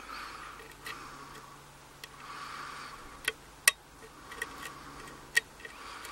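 Hook pick working the pins inside a euro cylinder lock's keyway under tension: soft metallic scraping, broken by several sharp clicks, the loudest about three and a half seconds in.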